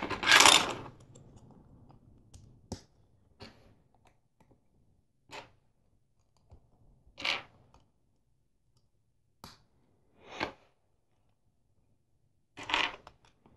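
Plastic LEGO bricks clicking as they are handled and pressed together by hand: a short rattle of loose pieces at the start, then about seven separate sharp clicks a second or two apart.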